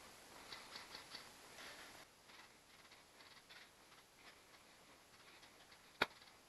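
Faint rustling and small clicks, then a single sharp crack about six seconds in.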